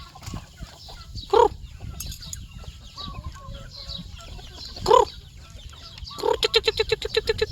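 Chickens clucking: two loud single squawks a few seconds apart, with faint chirps between them. Near the end comes a fast, even run of clucks, about seven a second.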